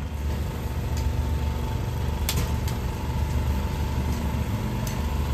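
An engine running steadily with a low, even hum, a few light clicks over it.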